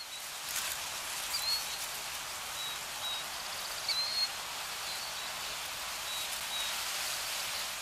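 Nature ambience: a steady rain-like hiss with a few short, high bird chirps, fading in at the start and out at the end.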